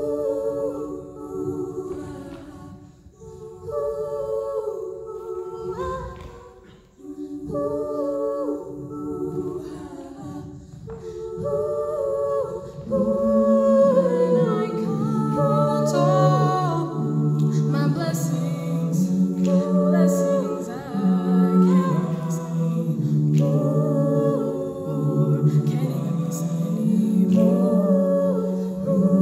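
High school a cappella group singing into microphones: held, humming chords in short phrases at first, then a bass line comes in about halfway and the singing grows fuller and louder.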